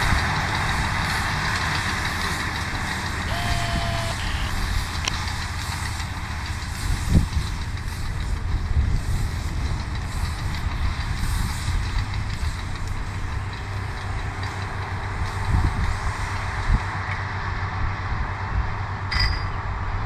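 Tractor engine running steadily under load while pulling a Feraboli Trotter Omnia baler-wrapper combination, its baling and wrapping machinery working. A short tone sounds a few seconds in, and a sharp knock comes about seven seconds in.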